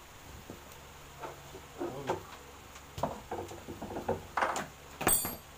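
Scattered knocks and bumps of a plywood wall cabinet being shifted and pressed against a wall, with a sharper, clinking knock near the end.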